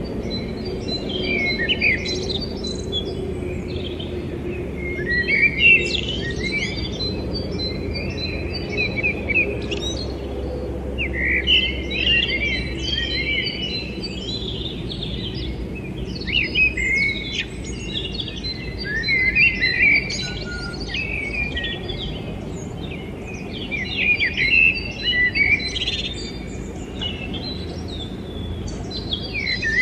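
Many small birds chirping and twittering, several at once, coming in louder bursts every few seconds over a steady low background hum.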